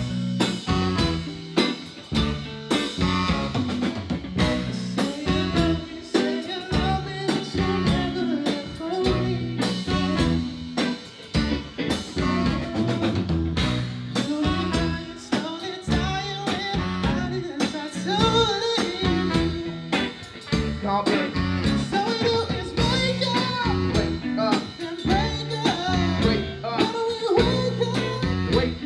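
Live band playing a song, with drum kit, guitar and singing over the top.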